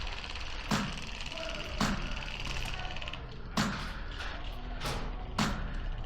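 Airsoft gunfire: about five sharp single shots at uneven intervals. A fine rapid rattle runs under them until it stops about three seconds in.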